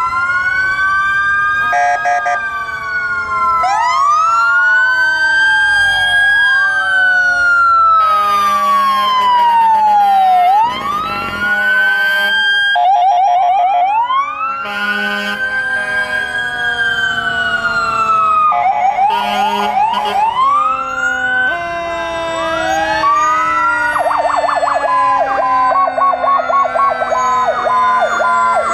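Several fire trucks' sirens sounding at once: overlapping slow rising and falling wails, with stretches of quick warbling yelp and short steady horn blasts. Near the end a rapid pulsing siren tone plays over a low tone that slowly falls.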